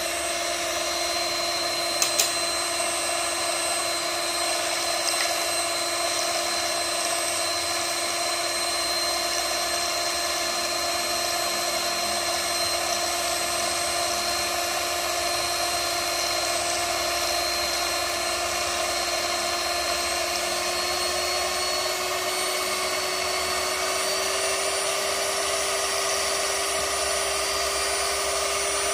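Miyako HM-320 electric hand mixer running on speed 1, its motor giving a steady whine as the wire beaters whisk raw eggs in a bowl. There are two quick clicks about two seconds in, and the motor's pitch rises slightly near the end.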